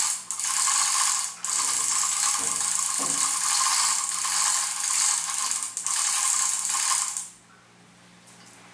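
Ratchet pawl of a manual hoist clicking rapidly and continuously as the hoist is worked to move a 100 kg lathe. It breaks off briefly twice and stops abruptly about seven seconds in.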